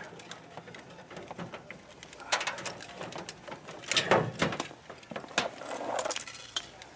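Irregular clicking, knocking and rustling of cables and plugs being handled and pulled under a counter, with louder clattering bunches about two, four and five and a half seconds in.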